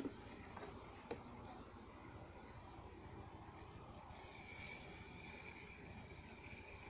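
Steady high-pitched chorus of insects from riverside forest, with a second, thinner insect tone joining about four seconds in. A single soft click about a second in.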